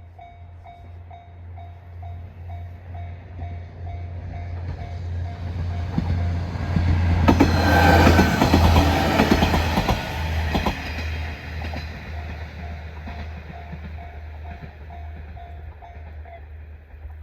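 A level-crossing alarm rings steadily at about two dings a second while a JR Koumi Line diesel railcar approaches and passes over the crossing. The train is loudest about seven to ten seconds in, with its wheels clacking over the rail joints. The crossing bell stops shortly before the end.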